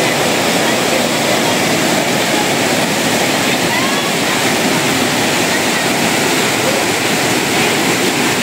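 Fast-flowing water rushing steadily, an even, unbroken noise with no pauses.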